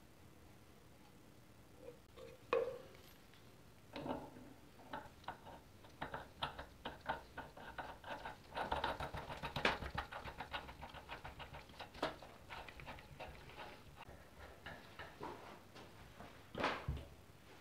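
Quick, irregular light metallic clicks and taps as lock nuts are spun by hand onto a threaded rear axle and the parts are handled, with a duller knock near the end.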